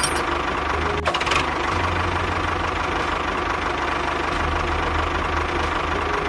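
Tractor engine running steadily with a knocking chug, with a brief break about a second in.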